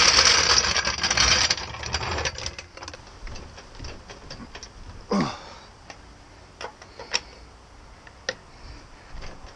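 Steel floor jack being rolled over concrete, a loud rattling roll of its wheels lasting about two seconds. Then scattered light metal clicks, with one short falling squeak about five seconds in.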